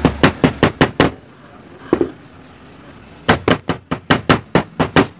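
Rapid knocking on the metal body of a two-burner glass-top gas stove, about four to five knocks a second, to shake loose rust out of its gas supply pipes. One run of knocks in the first second, a pause, then a second run near the end.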